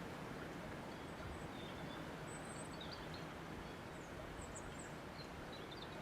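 Steady wind noise, with a few faint high bird chirps scattered through it.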